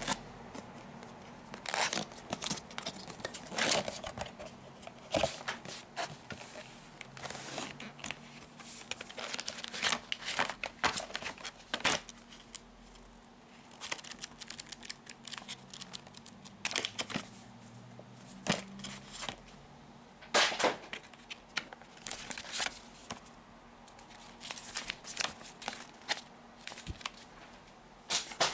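Cardboard box packaging and paper inserts being handled and lifted out: irregular rustling and crinkling of card and paper, with short pauses between.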